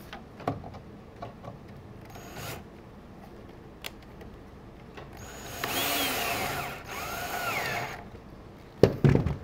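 Cordless drill driving an inch-and-three-quarter wood screw into the chair's wooden back. It runs in two bursts about five seconds in, one of about two seconds and one of about one second, and the motor's whine rises and falls as the screw goes in. A few light clicks and knocks come before it.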